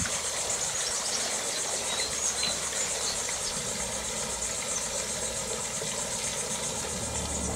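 Steady, high-pitched insect chorus with a fast, even pulse, over a low steady hum.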